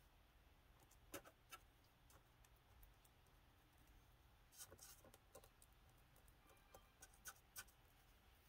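Near silence with a handful of faint, short clicks and taps from a small paintbrush working grey paint onto a dollhouse porch's miniature stucco base.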